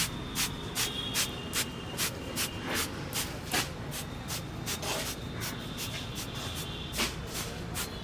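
Head massage by a barber: hands rubbing and working briskly over the hair and scalp, making short swishing strokes about two to three a second in an uneven rhythm.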